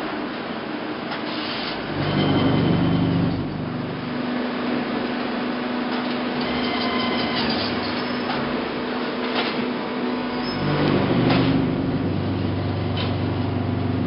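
Concrete block production machinery running: the cuber's clamp and the chain conveyors working over a steady hum, with two louder spells of low motor rumble and a few metallic knocks as the clamp stacks layers of pavers.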